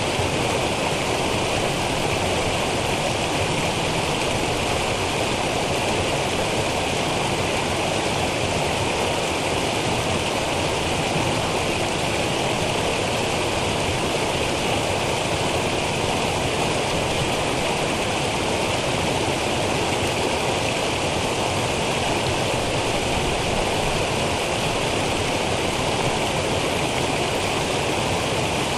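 Small woodland waterfall: water cascading steadily over a rocky streambed.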